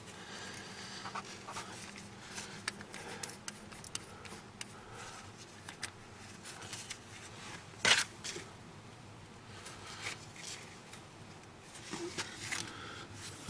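Faint scraping and clicking of a hand tap being turned a little at a time as it cuts new threads in a drilled-out exhaust manifold bolt hole in a GM 454 engine. There is one sharper click about eight seconds in.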